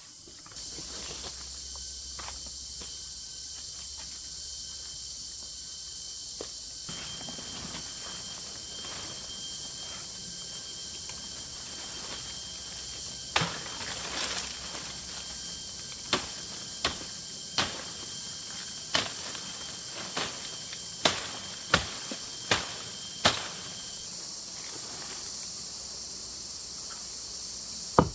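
Steady high insect chorus. About halfway through comes a run of a dozen or so sharp knocks, roughly one a second, with one louder knock near the end.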